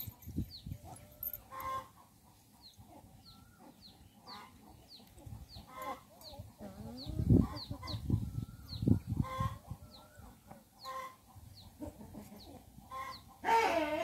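Chickens clucking, with a steady run of short high chick peeps about two a second. A few dull low thumps come near the middle.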